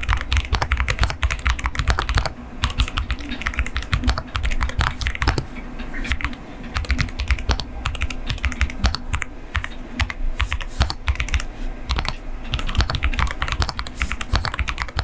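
Continuous fast typing on an Epomaker Cidoo V87 Pro gasket-mounted mechanical keyboard with PBT keycaps, a dense, irregular stream of key clacks. The keystrokes are cushioned by the Poron foam that damps the keys' impact on the base, making the board very quiet to type on.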